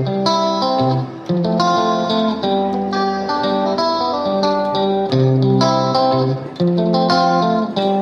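Background music: a guitar playing a string of plucked notes.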